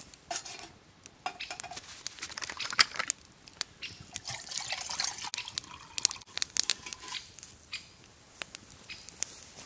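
Water poured from a bottle into a steel mug sitting on a burning twig stove, splashing and trickling in two long stretches. Sharp crackles and pops from the wood fire run through it.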